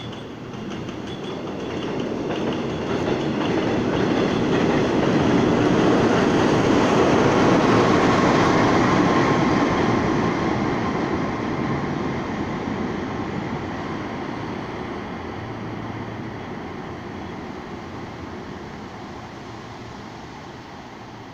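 Subway work train, led by a diesel work locomotive, passing on elevated track: wheel-on-rail rumble and clatter build to a peak about seven seconds in, then fade slowly as it draws away.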